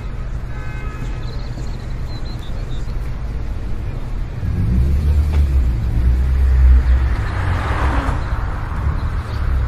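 Cinematic sound design: a steady low rumbling drone, swelling into a heavier deep bass about halfway through, then a whoosh that rises and fades near the end.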